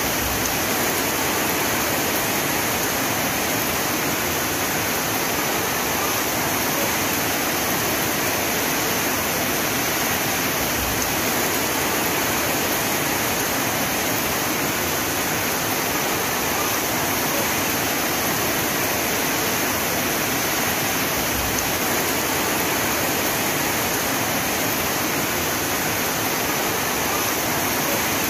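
Heavy rain falling in a steady, even hiss, with no breaks or changes.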